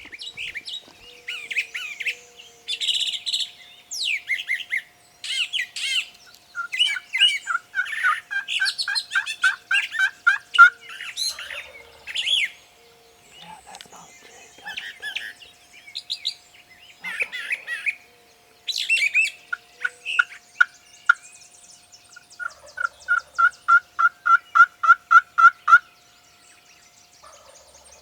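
Songbirds singing in a busy spring chorus of varied chirps, whistles and trills. Near the end one bird gives a run of about a dozen evenly spaced notes.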